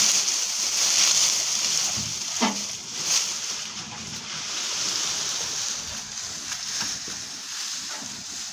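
Fire in a furnace under a large pot of milk, being stoked up: a steady hiss with a few sharp cracks in the first few seconds, the hiss easing off toward the end.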